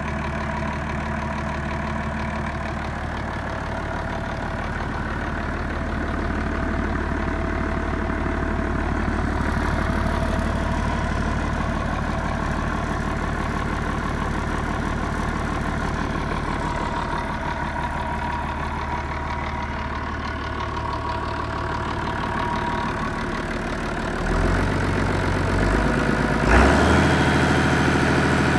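Perkins Sabre M215 six-cylinder turbocharged marine diesel running steadily at idle on a test stand. Its note rises and gets a little louder in the last few seconds.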